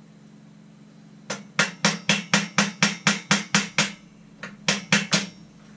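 Small claw hammer tapping a pin into a folding workbench's frame. It strikes a quick run of about eleven blows at about four a second, pauses briefly, then strikes a second short burst of four.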